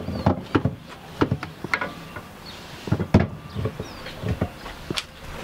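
Scattered sharp clicks and knocks of parts and tools being handled while fitting a short shifter.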